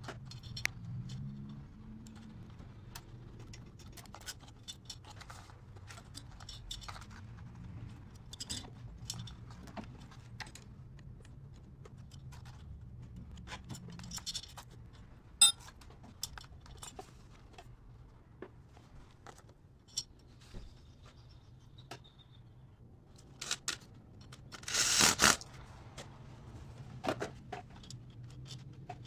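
Hand work on a small motorcycle cylinder head: metal parts and tools clicking, clinking and scraping at irregular moments. A louder scrape about a second long comes near the end.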